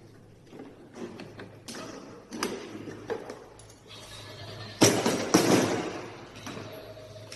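Knocks, clicks and clatter of hard parts being handled, with two loud thumps about five seconds in. A low steady hum runs underneath.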